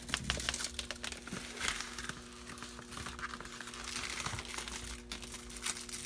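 Plastic protective wrapping being peeled and torn off a new steering wheel by hand, crinkling and crackling irregularly.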